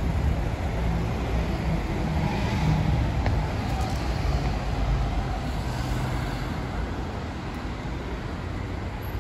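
City street traffic: car and bus engines running and passing on the road as a steady rumble, easing off slightly near the end.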